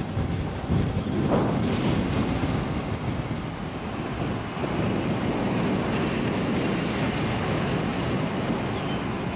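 Wind buffeting the microphone, with road noise from a moving vehicle, as steady rushing noise without a clear engine tone.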